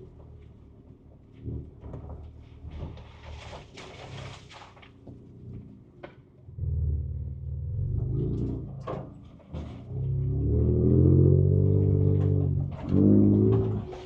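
Ford Ranger Raptor's 3.0-litre twin-turbo V6 heard from inside the cabin at low speed on a rough trail, with scattered knocks and rattles. The engine is low and quiet at first, then pulls harder about halfway in, and is loudest near the end.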